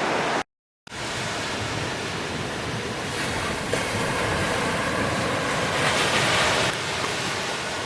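Ocean surf washing steadily on a beach, with wind buffeting the microphone; the sound swells a little near the end and drops out completely for a moment about half a second in, where the video cuts.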